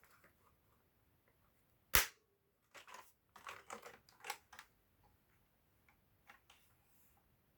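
Sharp, irregular plastic clicks and clacks from a Logicool G-PKB-001 tenkeyless mechanical keyboard being handled and its keys pressed: one loud click about two seconds in, a quick cluster of clacks just after, then a few fainter ones.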